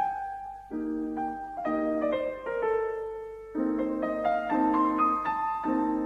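Background piano music: a melody of single notes over chords struck about once a second, each fading before the next.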